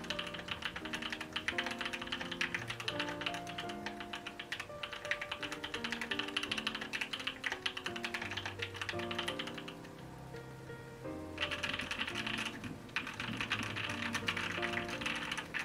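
Steady typing on a Noxary Valhalla mechanical keyboard with Gateron Cream Soda switches on a 5 mm polycarbonate plate: a dense stream of key clacks. The typing stops for about a second around ten seconds in, then resumes.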